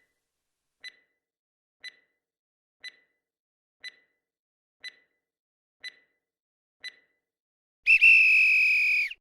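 Countdown timer sound effect: a short tick once a second, eight ticks, then a long electronic beep of about a second marking time up.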